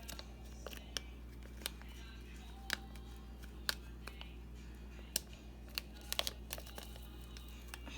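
Scattered light clicks and taps from handling bath bomb kit materials (bowl, spoon, colour packet), about a dozen spread irregularly, over a faint steady low hum.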